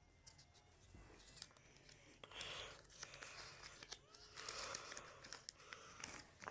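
Faint paper rustling and crinkling as a folded cube instruction leaflet is handled and opened, in short irregular scrapes and clicks.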